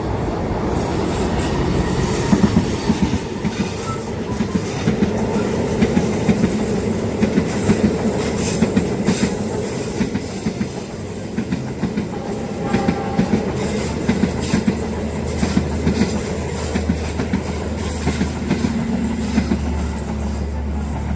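Train cars rolling past close by, their wheels clattering over the rail joints in irregular knocks, with a brief high wheel squeal about halfway through.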